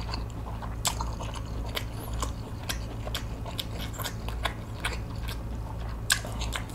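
A person chewing a mouthful of spicy cold noodles with sea snail: a run of short wet smacking clicks, with louder ones about a second in and near the end, over a steady low hum.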